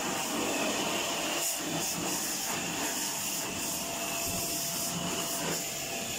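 Small electric pressure washer running steadily, with the hiss of its water jet spraying the air conditioner's evaporator coil.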